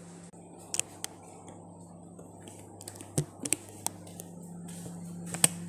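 Sharp clicks and knocks of kitchenware being handled, about ten in all and loudest near the end, over a steady low hum.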